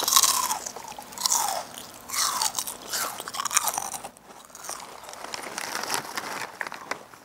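Crunchy snack chips being bitten and chewed close to the microphone, with bursts of crisp crunching that ease off in the middle.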